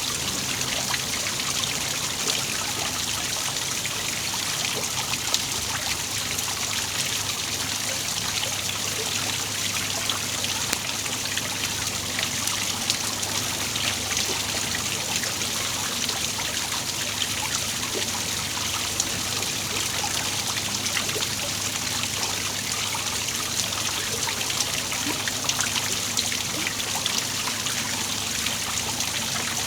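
Small waterfall splashing and trickling steadily, a continuous patter of falling water with many small splashes.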